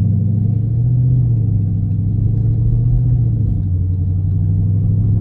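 2018 Dodge Charger R/T's 5.7-litre Hemi V8 running under way at cruising speed, a steady low drone whose pitch rises slightly about a second in and eases a little later.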